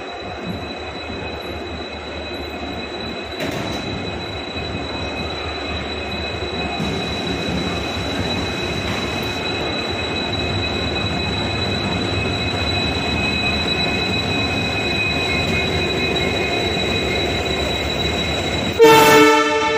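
Indian Railways express train running, a steady rumble with a thin high whine that grows gradually louder. Near the end a train horn sounds once for about a second.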